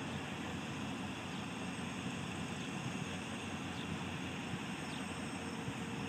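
Heavy construction machinery running, a steady low engine rumble with an even hiss over it.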